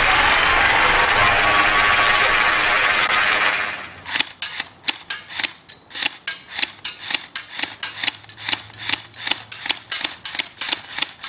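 A loud, even rushing noise for the first few seconds. Then a battery-powered M804A airsoft rifle fires BBs on semi-automatic: a quick string of sharp cracks at about four a second that stops abruptly at the end.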